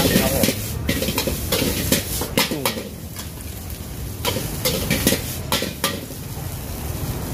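Metal spatula clanking and scraping against a wok as food is stir-fried, with steady sizzling underneath. The sharp clanks come irregularly throughout, in small clusters.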